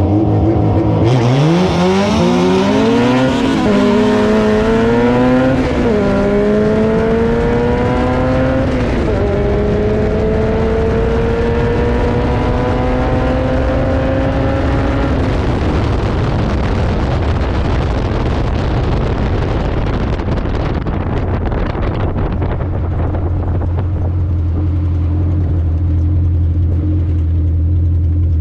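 A car engine accelerating hard through the gears. Its pitch climbs and drops at upshifts about 4, 6 and 9 seconds in, then climbs more slowly in a long final gear until the throttle is lifted around 15 seconds in. It then coasts down and settles to a steady low idle near the end.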